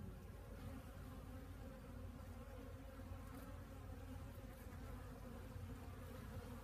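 Honeybees buzzing steadily as they fly in and out of the hive entrance on winter cleansing flights.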